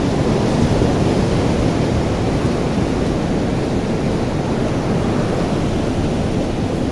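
Ocean surf washing onto a beach, a steady rush of breaking waves with wind buffeting the microphone.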